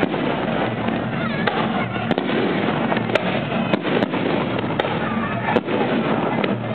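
Fireworks display: a string of sharp, irregular bangs and crackles over a steady wash of crowd noise.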